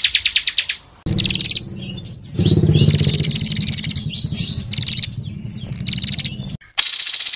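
Small songbirds singing fast, dense trills and harsh chirps, cut together from several recordings. A rapid clicking trill stops within the first second. A harsher stretch with a low, pulsing rattle under high chirps follows, and another high, dense trill starts abruptly near the end.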